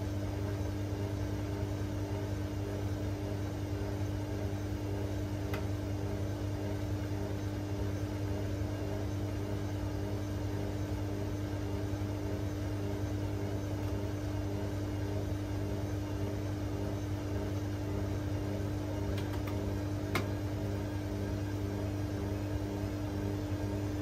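Whirlpool Aqualine AWM1860 washing machine running steadily in its final spin stage: a constant motor hum with a light whir, and two faint ticks.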